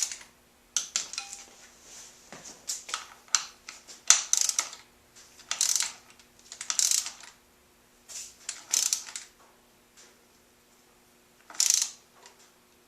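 Hand socket ratchet clicking in short runs of a second or less, with single metallic clicks and clinks between, typical of running bolts on a motorcycle's front fork clamps by hand.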